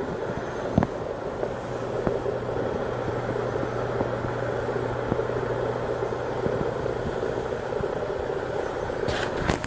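Coin-op electric chair running its show: a steady electrical buzzing rush over a low constant hum, with a few sharp clicks and a louder crackle near the end.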